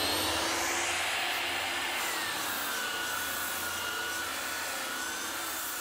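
Handheld electric rotary sander running with its pad pressed against a wall surface. Its whine drops in pitch over the first two or three seconds, then holds steady over a constant rushing noise.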